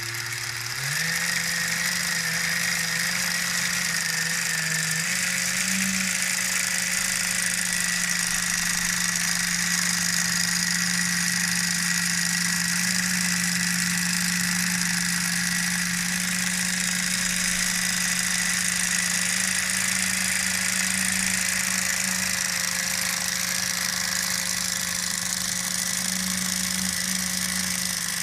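Lego 12V train motor running on a test bench with a steady mechanical whine. Its pitch steps up within the first second and again about five seconds in, then holds steady.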